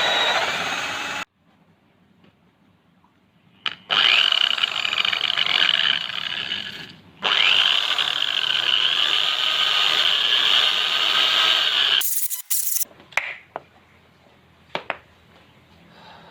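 Electric drill motor running under load as it works wood, in several separate runs with a steady high whine over grinding noise; each run stops abruptly. A few sharp knocks follow near the end.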